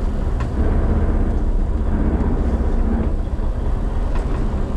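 Fishing boat's engine running with a steady low rumble.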